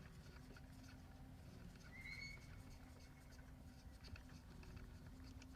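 Near silence: a low background rumble with a few faint clicks and one short, high chirp about two seconds in.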